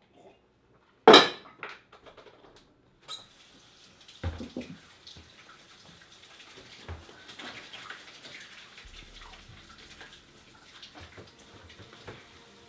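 Kitchen handling noises: a sharp knock about a second in as a plastic gallon jug is set down on the countertop, then lighter clinks and thumps of dishes and containers over a faint steady hiss.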